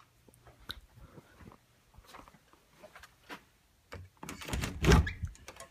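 A workshop door being opened on entering: light knocks and footsteps, then a louder scraping rush ending in a thud near the end.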